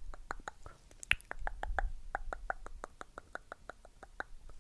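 Rapid soft ASMR mouth clicks, about six a second, with one sharper click about a second in.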